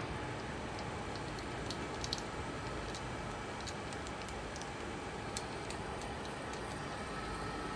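Jungner US-450 tool and cutter grinder running with its spindle at 1500 RPM: a steady, even machine noise with scattered light ticks as the table is cranked by hand in cross travel.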